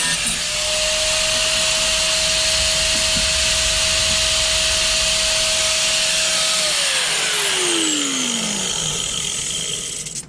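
A hand-held grinder working the rusted sheet metal, running with a loud hiss and a steady whine; about two-thirds of the way in it is let off and its whine falls in pitch as it winds down.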